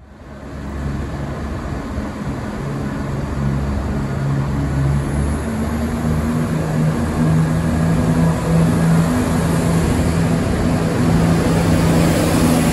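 Diesel train engine running, a steady low drone with a hum that shifts in pitch a little and grows gradually louder.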